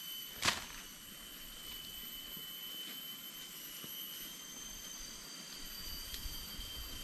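A steady high-pitched drone of tropical forest insects, several even tones held over a hiss, with one sharp crackle of a footstep in the undergrowth about half a second in.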